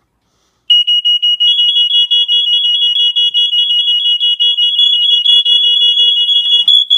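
Three smoke alarms, a Fire Sentry 0914, a Family Guard 83R and a First Alert SA67D, sounding together in loud, shrill, rapid beeping. The first starts under a second in and another high tone joins about a second later. They cut off near the end.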